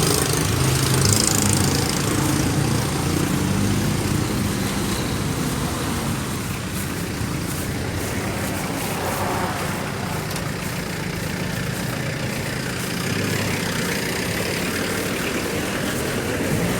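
Motor vehicle engine idling in traffic, a low steady hum that is clearest in the first few seconds, over a constant haze of road noise.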